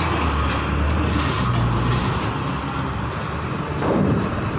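Heavy diesel truck engine running at low speed as it drives up onto a roll-on/roll-off ferry. It is a steady low rumble, with a brief louder swell about four seconds in.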